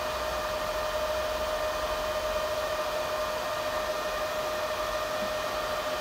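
Small electric cooling fans of a 12-volt homemade Peltier cooler running steadily under full load: an even airflow hiss with a constant mid-pitched whine.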